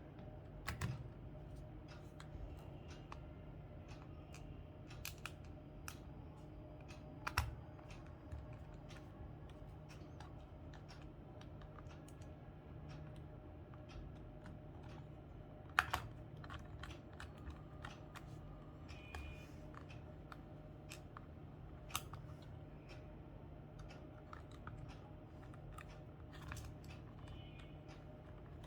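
Scattered light clicks and taps of a plastic scientific calculator's parts being handled and pried during disassembly, with sharper clicks about 7 and 16 seconds in, over a steady low hum.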